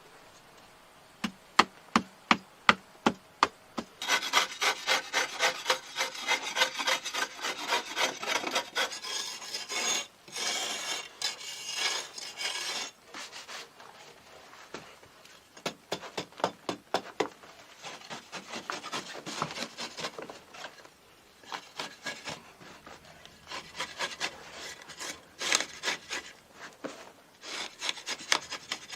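A hand tool working wood: first about eight separate sharp scrapes, then fast back-and-forth rasping strokes in runs with short pauses.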